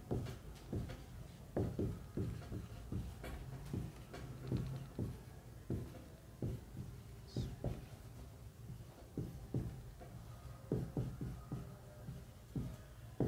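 A dry-erase marker writing on a whiteboard: irregular soft taps and strokes, a couple a second, with one brief squeak about seven seconds in, over a low steady hum.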